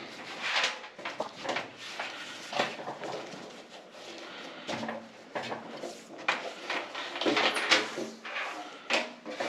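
Irregular knocks, clunks and scrapes of clothes dryer parts being handled and moved during a repair.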